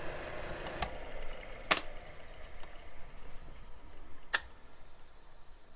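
Taig lathe running while a small twist drill in the tailstock bores into metal stock at full depth, with three sharp clicks over it. The running sound gets quieter toward the end.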